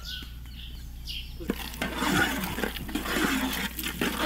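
Thick snail curry bubbling and simmering in a large pan, a wet, irregular bubbling that starts about a second and a half in. Before it, a few faint bird chirps.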